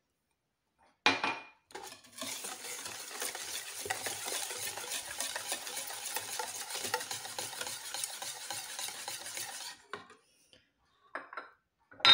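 Wire whisk beating egg, sugar, oil and milk into cupcake batter in a ceramic bowl: a steady, rapid scraping of the wires against the bowl for about eight seconds. A single sharp knock comes about a second in, before the whisking starts.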